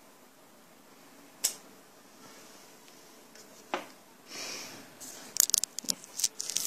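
A handheld photosensitive stamp tapped down onto paper on a tabletop: a couple of single light knocks, then a quick cluster of sharp clicks and a soft rustle from the stamp and paper being handled near the end.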